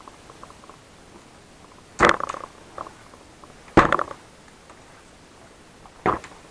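Three sharp clattering knocks about two seconds apart, with faint small ticks between them: hands and tools handling a laptop's plastic case and parts during disassembly.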